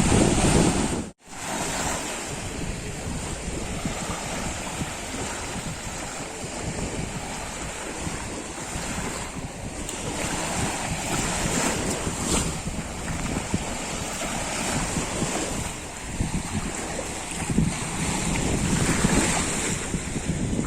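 Sea surf washing onto the shore: a steady rush of waves that swells and ebbs. The sound cuts out for a moment about a second in.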